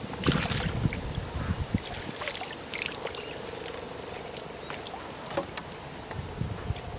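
Water splashing and trickling as a tench is returned to the lake, with scattered sharp clicks from fishing tackle being handled; the splashing is busiest in the first couple of seconds, then a faint steady hum comes in.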